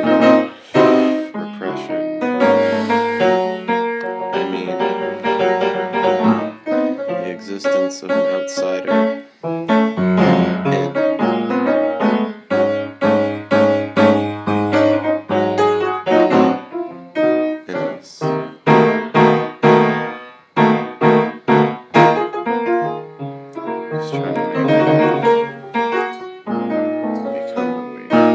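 Piano music: a steady flow of struck notes over a lower bass line.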